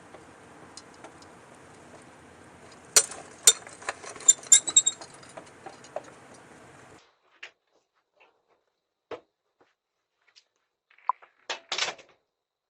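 Steady hiss from a doorbell camera's microphone with a cluster of sharp clicks and ringing metallic clinks about three to five seconds in. The hiss cuts off about seven seconds in, leaving a few scattered clicks and a short clatter near the end.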